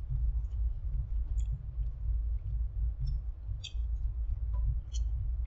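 A person chewing a mouthful of syrup-dipped pancake breakfast wrap, with a few soft wet mouth clicks and smacks, over a steady low hum.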